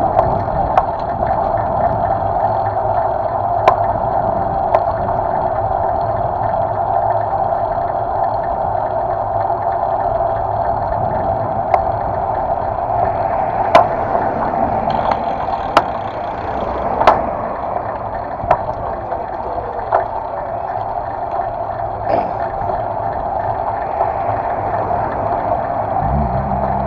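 Steady rumbling road and wind noise from a bicycle rolling along an asphalt street, picked up by a handlebar-mounted camera. Sharp knocks come now and then, the loudest about two thirds of the way in.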